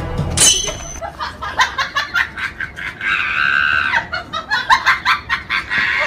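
Laughing sound effect: high-pitched laughter that starts with a short rising squeal, then goes into rapid, repeated 'ha' bursts, with a long held high squeal in the middle before the quick bursts resume.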